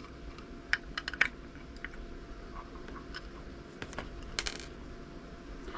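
Scattered light clicks and taps, with a quick cluster of ticks about four and a half seconds in: small parts and a tool being handled while the housing of a wireless RV backup camera is opened up.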